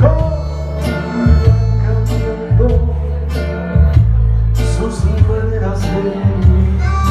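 A man singing into a microphone over backing music with guitar, heavy bass and a steady beat.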